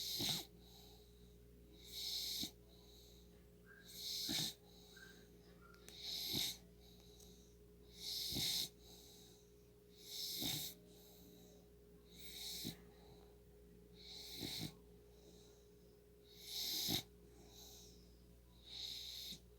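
A four-month-old pet snoring in its sleep, one snore roughly every two seconds, about ten in all.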